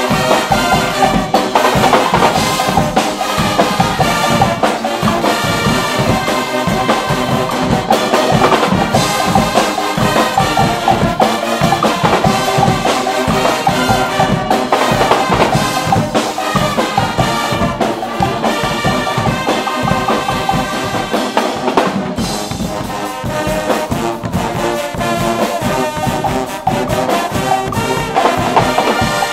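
Guggenmusik brass band playing live: a loud mass of trumpets and trombones in unison over a drum kit keeping a steady beat.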